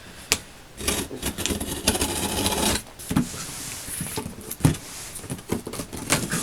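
A large cardboard box being opened by hand: stretches of scraping and rustling of cardboard, with scattered knocks and clicks as the box is handled.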